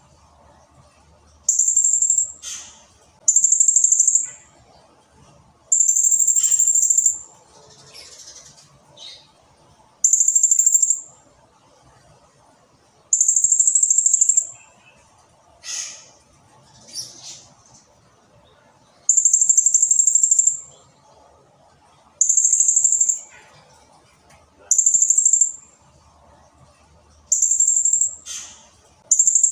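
Blue-crowned hanging parrot (serindit) singing: about ten loud, very high-pitched bursts of rapid trilling, each up to about a second and a half long, coming every couple of seconds. A few short falling squeaks come between them.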